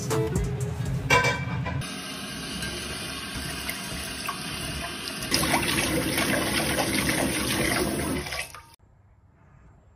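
Tap water running into a rice cooker's inner pot in a sink as rice is washed by hand, swirled in the water. The running water gets louder about five seconds in and cuts off suddenly near the end.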